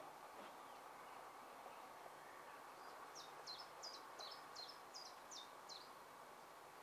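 Faint open-air background with a small songbird singing a run of about eight quick, high, falling notes, starting about three seconds in.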